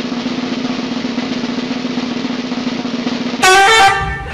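Snare drum roll played as a suspense sound effect, steady and unbroken. About three and a half seconds in it is cut off by a loud, pitched sound that wavers in pitch.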